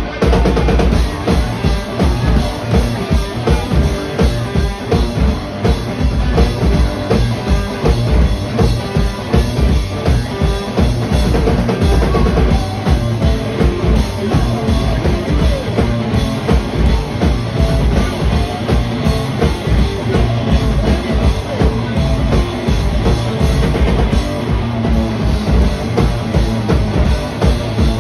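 Live blues-rock band playing loud: a heavy drum kit pounding a steady, driving beat on bass drum and snare under electric guitars, heard from among the audience.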